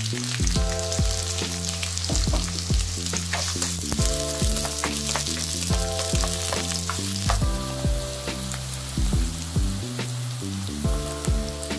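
Chopped onion and garlic sizzling as they fry in hot oil in a nonstick kadai (wok), stirred with a spatula. Background music with a steady beat plays over it.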